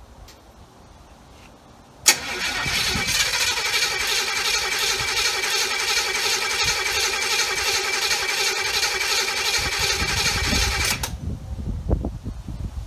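Starter cranking a small-block Chevy 350 V8 for about nine seconds with a steady whine and fast even rhythm, without the engine catching, then cutting off abruptly. It won't fire because the carburetor isn't delivering fuel; the owner thinks the carb is dead.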